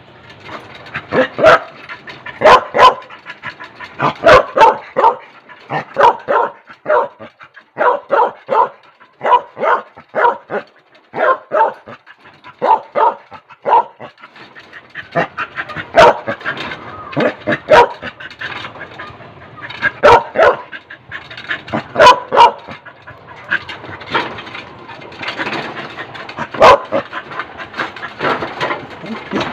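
Large dog barking loudly and repeatedly, in runs of short barks with brief pauses between them.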